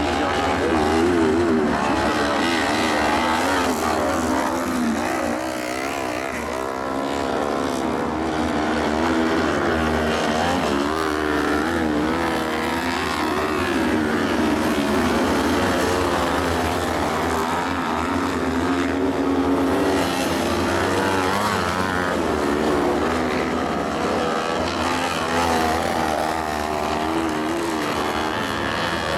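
Several 500 cc kart cross buggies racing, their engines revving up and down continuously, the pitches overlapping and rising and falling.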